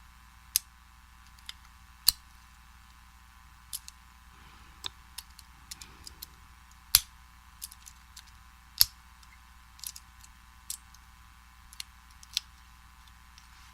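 Irregular sharp metallic clicks and ticks from a lock pick working the tumblers of a vintage Slaymaker Super padlock under a pry-bar tension tool. The two loudest clicks come about seven and nine seconds in.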